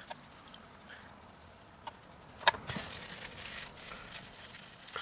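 Small turbocharger parts being handled and searched through: faint rustling and light clicks, with one sharp click about halfway through.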